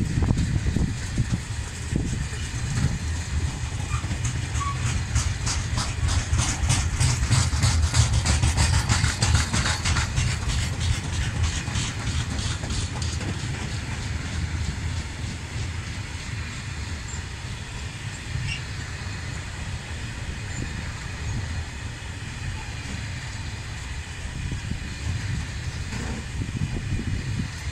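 Tarpaulin-covered freight wagons rolling past on the rails: a steady low rumble with a fast, regular clatter of wheels over rail joints from about five to thirteen seconds in, then easing to a quieter rumble.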